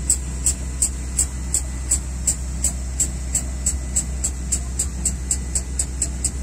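Steady low machine hum with an even, high-pitched ticking about three times a second.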